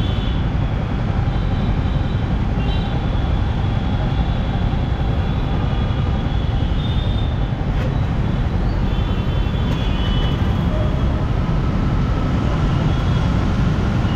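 Steady low rumble of a motorcycle and the traffic around it, waiting in a stop-and-go jam. Faint high-pitched tones come and go several times.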